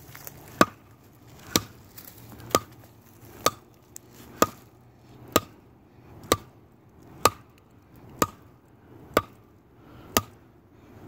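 An axe chopping into a log of really hard wood, one sharp strike about every second, each with a brief ring.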